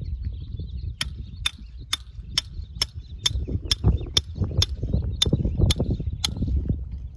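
A hammer driving a rod-holder stake into a gravel bank: about a dozen sharp, evenly paced strikes, roughly two a second, that stop about six seconds in.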